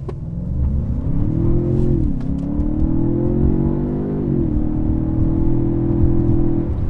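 A 2017 Ford Fusion Sport's twin-turbo V6 accelerating hard through the gears. Engine pitch rises, falls sharply at the automatic transmission's upshifts about 2 and 4.5 seconds in, then holds steady.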